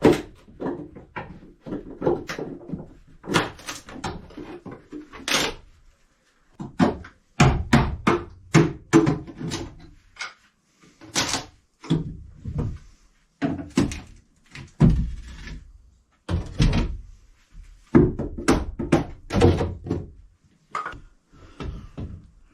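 Wooden galley fittings being torn out during demolition: repeated irregular thumps, knocks and clatter as pieces are pried and knocked loose.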